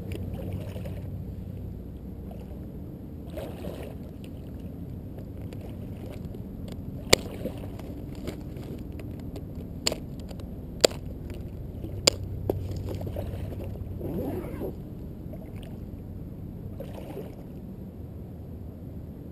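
A plastic tackle box of soft swimbaits being handled and snapped shut, giving a handful of sharp plastic clicks in the middle of the stretch. Under them is a steady low wash of water sloshing around a float tube.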